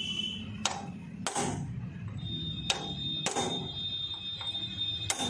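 Hammer blows on a steel drift, driving a 6204 ball bearing into the end of a Mahindra 265 DI tractor's crankshaft. There are five sharp metallic strikes, mostly in pairs, and a high ringing tone lingers from about halfway through.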